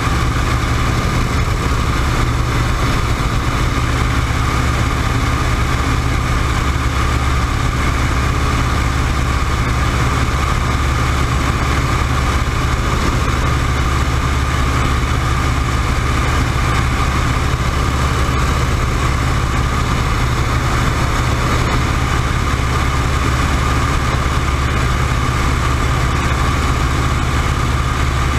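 WACO YMF-5 biplane's seven-cylinder Jacobs radial engine and propeller running steadily in cruise flight, heard from the open cockpit with wind rush over the microphone.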